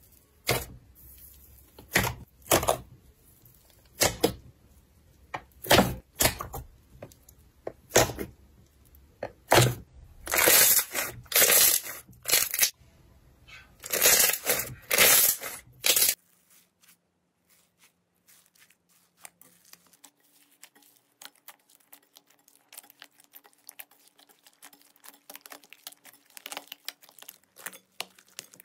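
Slime being handled close up: loud separate crackling and tearing bursts for about the first half, then an abrupt change to a quieter stream of fine rapid clicks and crackles.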